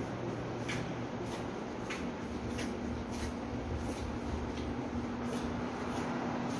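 Footsteps on a hard tiled floor, about one and a half steps a second, over a steady low hum and hiss of room noise.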